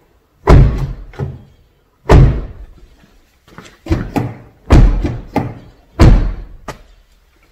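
A Kia Soul's front car door being slammed shut again and again: four hard slams about a second and a half apart, with a lighter close between them, each followed by a smaller latch clunk. The repeated closing works freshly sprayed lubricant and white lithium grease into the hinges and latch.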